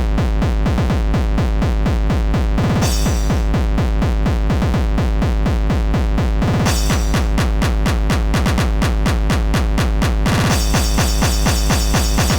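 Hardcore electronic music sequenced in ProTracker on an Amiga: a fast, pounding kick drum with synth layers that drop out and come back every few seconds.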